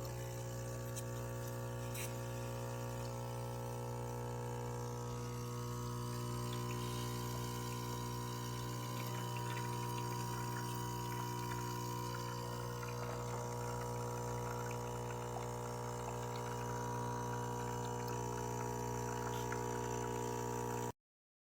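Capresso Ultima Pro espresso machine's pump humming steadily while espresso trickles into the cup during a one-cup brew; the hum stops abruptly near the end.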